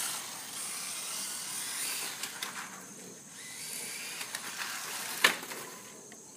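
Electric RC car running at speed: a hissing rush with a faint motor whine that glides up and down in pitch, and one sharp knock about five seconds in.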